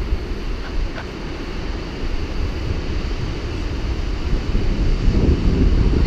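Wind buffeting the microphone: a loud, gusty low rumble that swells about five seconds in.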